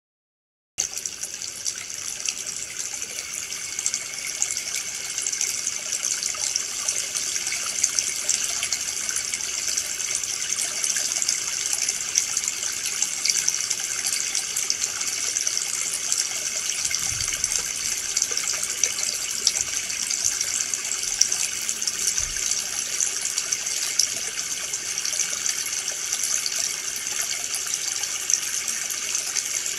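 Stream water trickling: a steady rush of running water with fine spattering. It starts abruptly about a second in.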